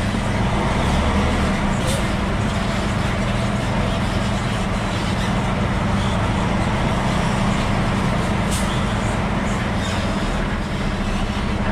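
Diesel log truck engine running steadily with a low drone.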